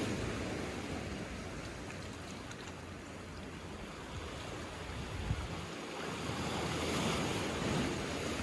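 Small sea waves washing in over rocks and a pebble beach: a steady wash that eases off in the middle and swells again near the end.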